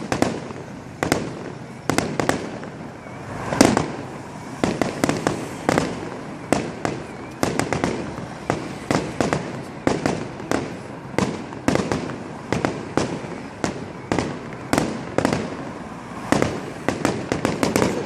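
Fireworks display: a continuous, irregular volley of aerial shell bursts, roughly two or three bangs a second, each trailing off in a short rumbling echo, with the loudest bang about three and a half seconds in.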